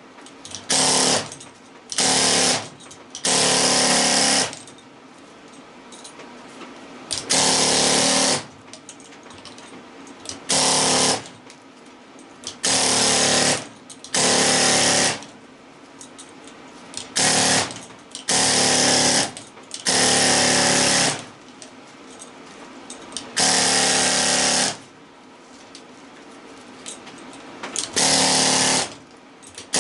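Pneumatic air chisel hammering in about a dozen short bursts, each half a second to a second and a half long with brief pauses between, working the copper windings off an electric motor for scrap.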